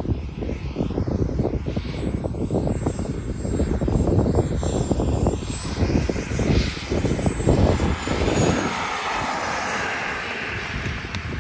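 Single Jetsmunt 250 model jet turbine in a radio-controlled F-22 Raptor, whining as the model comes in to land. A thin high whine rises slightly about halfway through and then falls away, while the jet hiss grows louder as the model passes close near the end, over a gusty low rumble.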